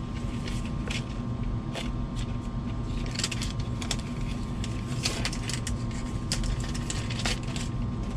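Plastic packaging being peeled and crinkled off a new product box, with irregular crackles and rustles, busiest in the middle, over a steady background hum.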